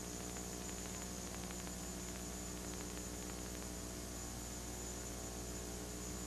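Steady electrical mains hum with a layer of hiss, at a low, even level.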